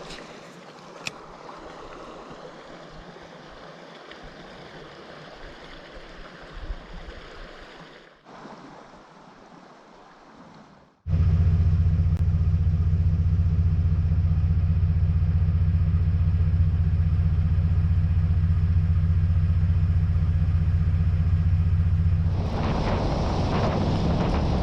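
Creek water rushing steadily, with a couple of brief breaks. About eleven seconds in it cuts off suddenly and a loud, steady low drone takes over.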